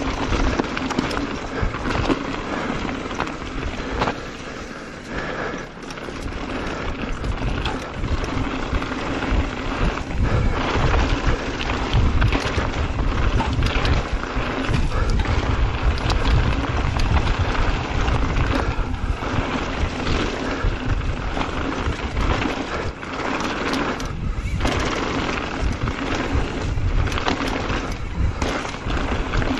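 Mountain bike ridden fast down a dirt and gravel trail: wind rushing over the camera microphone, tyres rolling over dirt and loose stones, and the bike clattering over bumps. The wind rumble grows heavier from about ten seconds in.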